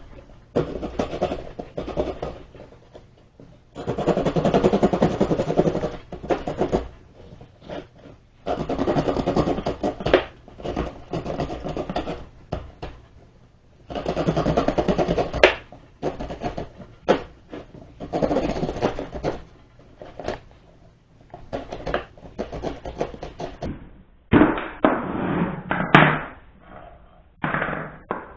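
Small saw blade of a multitool sawing through a twig or small branch, in spells of rapid back-and-forth strokes a second or two long with short pauses between.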